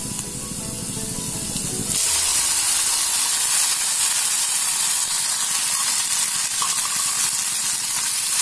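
Chopped shallots frying in hot oil in an iron kadai. About two seconds in, chopped tomatoes go into the pan and the frying jumps to a loud, steady sizzling hiss as they steam, with a wooden spatula stirring them near the end.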